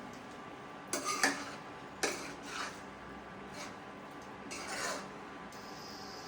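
Metal cooking utensil knocking and scraping against a pan as food is stirred. There are a few sharp clinks about one and two seconds in, and a longer scrape near five seconds.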